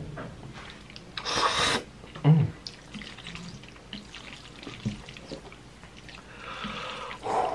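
Wet slurping of a mouthful of saucy ramen noodles about a second in, followed by a short low thump, then chewing and small wet mouth clicks, with more slurping near the end.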